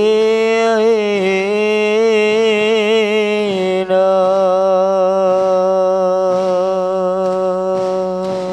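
A single male voice singing one long, drawn-out note of an Islamic devotional chant, the pitch turning in ornamented waves for the first three seconds or so, then held steady to the end.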